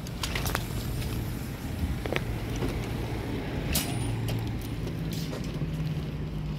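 A motor vehicle's engine running with a low, steady hum that rises slightly in pitch about two-thirds of the way through, with a few scattered clicks.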